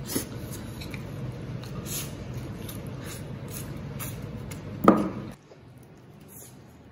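Close-up mouth sounds of a person eating a braised chicken drumstick: chewing and sharp lip smacks about once a second, with one louder, brief sucking sound about five seconds in.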